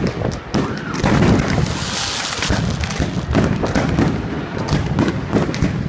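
Aerial fireworks bursting overhead in quick succession: a dense run of bangs and crackles, with a spell of hiss about two seconds in.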